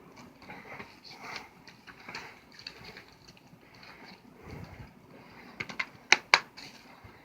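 Hands handling a Blu-ray case and its packaging: soft rustling and rubbing, then a few small clicks and two sharp plastic snaps about six seconds in.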